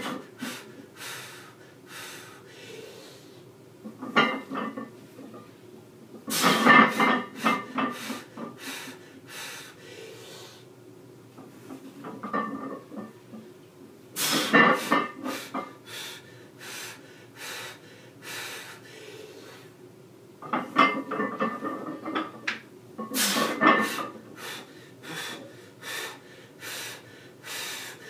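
A lifter's hard breathing and forceful exhales during a heavy squat set, coming in loud bursts every few seconds, with scattered sharp clicks between them.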